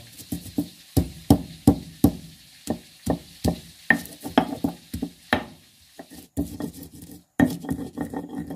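Steady knocking from food preparation in the kitchen, about three sharp strikes a second, broken by two short gaps near the end.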